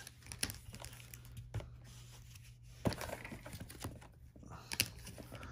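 Trading-card packs and cards being handled: scattered crinkles of the foil pack wrappers and light clicks and taps of cards, with a sharper tap about three seconds in and another near the end.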